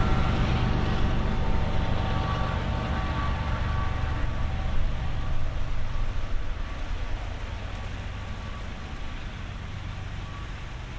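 Diesel locomotives of a double-stack freight train working upgrade: a deep, steady rumble with faint steady tones above it, fading as the train draws away.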